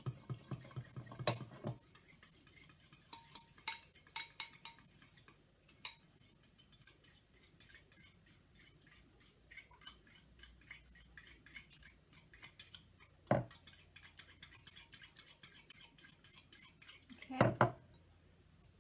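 Fork whisking beaten egg and milk in a ceramic bowl, the metal tines clinking rapidly and evenly against the bowl's sides, with a couple of louder knocks of fork on bowl.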